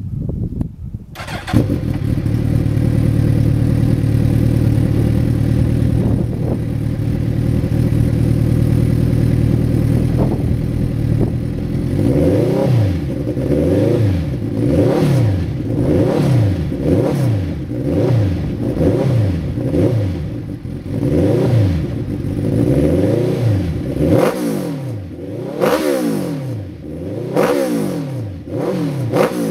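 Suzuki GSX1300R Hayabusa inline-four engine exhaling through an aftermarket sport muffler: it starts about a second and a half in and idles steadily, then from about twelve seconds in is revved in repeated throttle blips, the pitch rising and falling each time, with quicker blips near the end.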